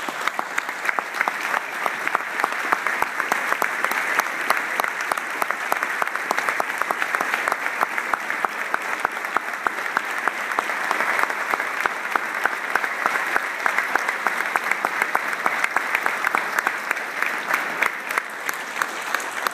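Large audience applauding without a break: a dense, even patter of many hands clapping.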